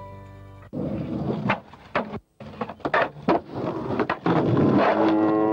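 Skateboard wheels rolling on concrete, with several sharp clacks of the board striking the ground or a ledge. Near the end a loud, long, steady call starts.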